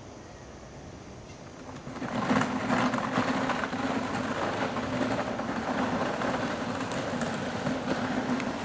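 Small go-kart engine starting up about two seconds in and then running steadily with an even buzzing note.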